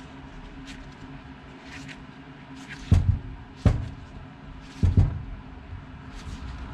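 Carburetor parts and tools being handled on a workbench: five sharp knocks in three quick clusters about a second apart, over a steady low hum.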